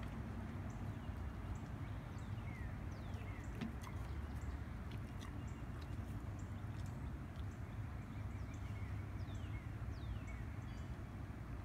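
Outdoor ambience: a steady low rumble with faint, repeated high descending whistles and short chirps from birds, and a few light clicks.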